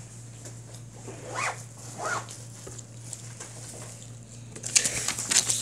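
Plastic water bottle crinkling and clicking as it is handled and set down on a hard tabletop, the crackles bunched near the end. Before that, two short squeaks that rise and fall in pitch, over a steady low hum.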